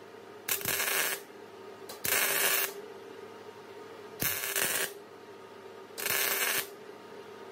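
Wire-feed welder arcing in four short bursts, each under a second and about two seconds apart, laying welds that join a turbocharger to a broken-off exhaust manifold bolt in the cylinder head.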